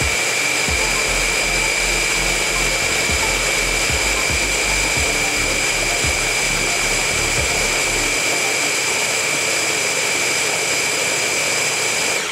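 Ninja food chopper's motor running steadily with a high whine, blending raw liver and oats into a thick batter, with a low uneven rumble underneath that fades about two-thirds of the way through. The motor cuts off suddenly at the end.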